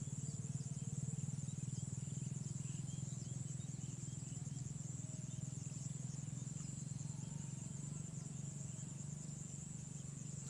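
Insects, like crickets, trilling in a steady high chorus over a low, steady pulsing drone.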